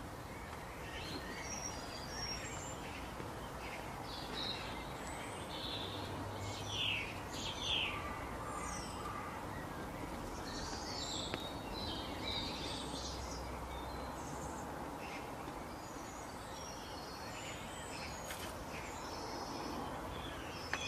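Outdoor birdsong: several small birds chirping and calling in short, scattered phrases over a steady background hiss, with the loudest calls about seven to eight seconds in.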